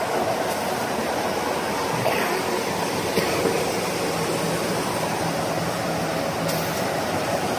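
1988 Bobst folder-gluer running at its top speed, cartons feeding along its belts: a steady, even mechanical noise with a faint steady hum.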